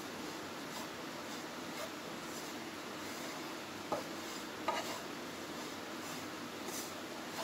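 Wooden spatula stirring and scraping dry desiccated coconut powder around a nonstick pan as it is dry-roasted, with a few light knocks of the spatula against the pan around the middle.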